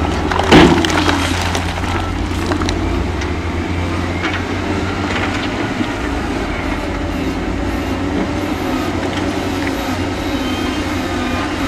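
Heavy diesel earthmoving machinery running steadily, with a loud metallic clank about half a second in and scattered smaller knocks after it.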